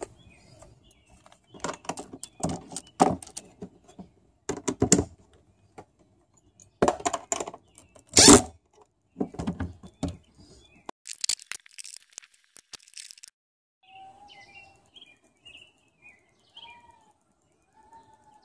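Clicks, knocks and short scraping bursts from fitting a plastic screw-in deck plate into a hole in a fibreglass boat. About fourteen seconds in these stop and birds are heard chirping and whistling.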